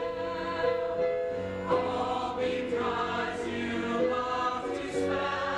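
Musical-theatre cast singing together as an ensemble, several voices holding long notes in harmony.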